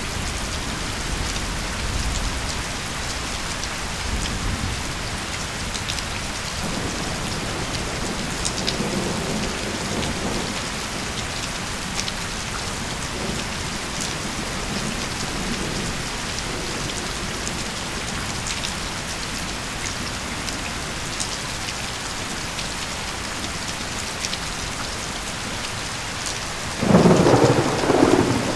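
Steady heavy rain hissing, with scattered sharp drips and a soft low rumble of distant thunder about a third of the way in. Near the end a loud clap of thunder breaks in and rumbles on.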